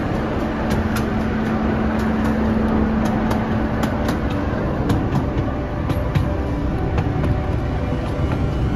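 Miniature park train running along its track: a steady rumble with a series of sharp clicks from the wheels and rails, and a steady low hum that stops about halfway through.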